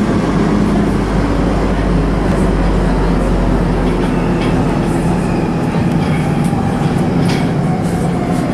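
Munich U-Bahn Type B metro car running in a tunnel: steady wheel-and-rail rumble with motor hum and a few short clicks from the track. In the second half the low rumble fades and a thin whine drops slightly in pitch as the train slows for a station.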